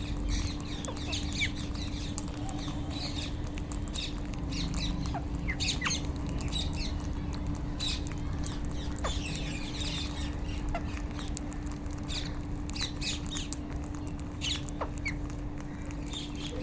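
A flock of rose-ringed parakeets (Indian ringnecks) chattering with many short, shrill calls, some sliding down in pitch, over a steady low hum.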